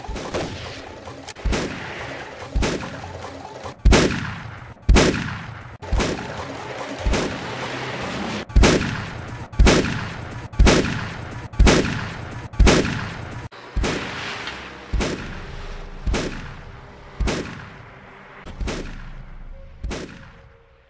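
Pump-action shotgun fired over and over, about one shot a second, each shot leaving a fading echo. The last several shots are a little weaker.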